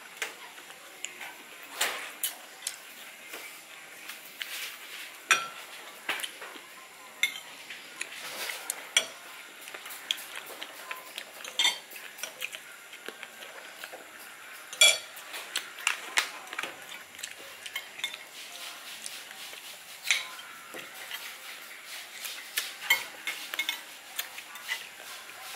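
Kitchen utensils clinking and knocking against dishes and pots, with some stirring and scraping. The clinks come irregularly, a few of them ringing briefly.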